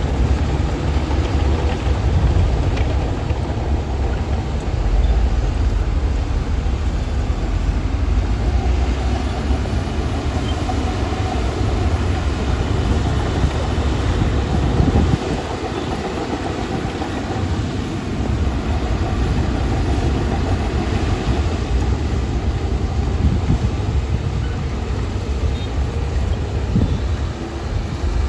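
Shantui DH17-C2 crawler bulldozer's diesel engine working with a steady, heavy low rumble, easing off a little about halfway through.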